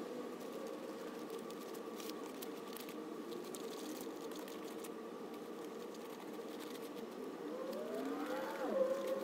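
A siren-like wail held steady, rising and then falling sharply near the end, over the light scratching and dabbing of a paintbrush spreading house paint on a papier-mâché volcano.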